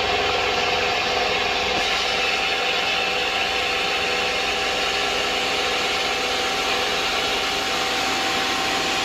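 Mazak CNC machining center running a thread-milling pass with a thread mill: a steady whine over a continuous hiss, unchanging throughout.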